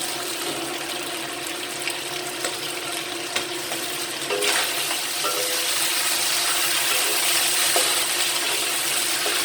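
Pork ribs sizzling as they fry in oil in a pan. The sizzle grows louder about four and a half seconds in, with a few light clicks.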